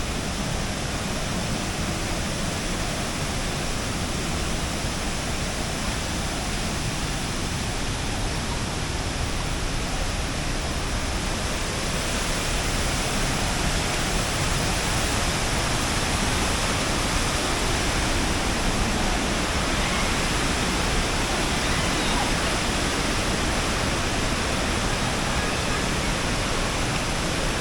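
Rushing water of a waterfall cascade: a steady, dense roar of falling water that grows a little louder about halfway through.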